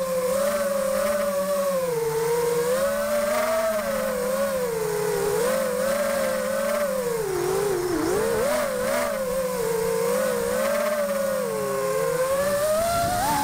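Wizard X220 racing quadcopter's brushless motors and propellers whining, heard through its onboard camera. The pitch wavers up and down with the throttle and dips sharply about eight seconds in before climbing again. It is flying on stock propellers that the owner calls horrendous and has not balanced.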